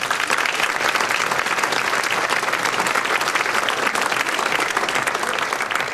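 Hall audience applauding: dense, steady clapping from many hands that begins sharply and dies away at the end.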